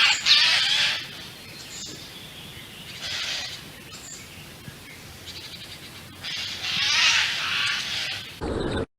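Eurasian jay giving harsh, rasping screeches: one at the start, a shorter one about three seconds in, and a longer one from about six to eight seconds in.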